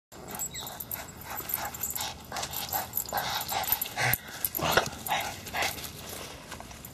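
Boston terriers whining and yipping in short, irregular sounds during excited fetch play, the loudest a little past four seconds and near five seconds in.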